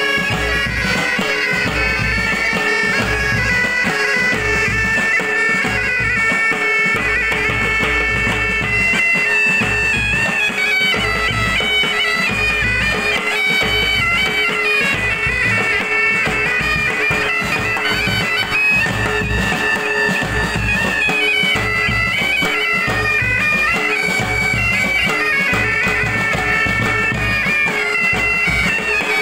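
Pipe band playing a tune: several bagpipes carry a stepping melody over a steady drone, while side drums and a bass drum keep a regular beat underneath.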